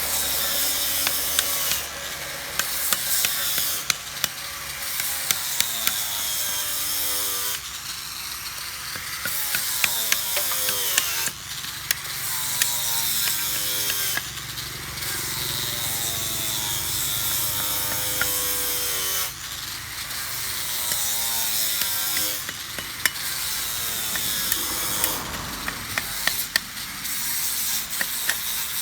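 Wood being worked with a tool in repeated scraping strokes a second or two apart, with many sharp clicks.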